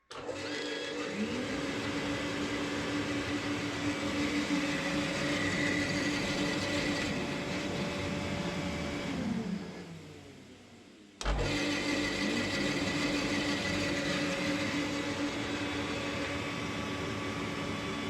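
Shop vacuum motor switched on and running with a steady whine that spins up about a second after starting. It winds down around nine seconds in, then restarts with a low thump at about eleven seconds and runs again until it begins to wind down at the very end.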